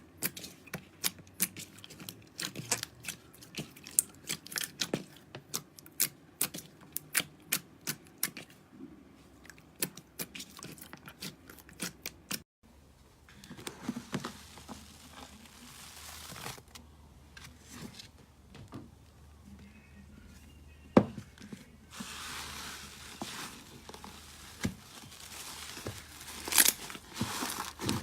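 Slime being squeezed and poked by hand, making a quick run of crisp clicks and pops. After a break about halfway through, a softer crinkling, squishing sound with a few scattered pops.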